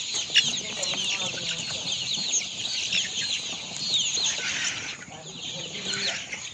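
A large flock of chickens calling all at once: a dense, unbroken stream of short, high peeps and chirps overlapping one another, with a few lower clucks beneath.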